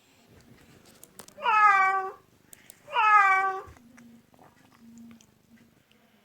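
Domestic cat meowing twice, each meow sliding down in pitch.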